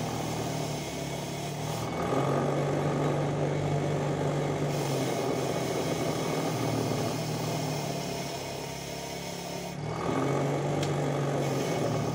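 Small electric polishing tool running under load as it buffs the thin metal thread-spreading plate from a sewing machine's hook, a steady hum with a rough grinding hiss over it. The sound swells about two seconds in, eases near five seconds and swells again near ten, as the piece is pressed harder or lighter.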